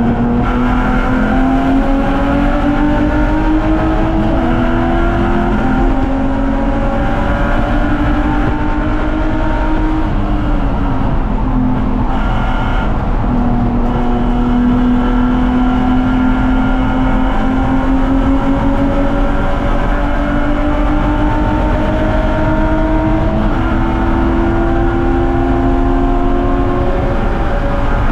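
BMW 330ci's inline-six engine pulling hard at racing speed, its pitch climbing steadily and dropping back at each upshift. About midway it eases off and the pitch falls for a few seconds before climbing again.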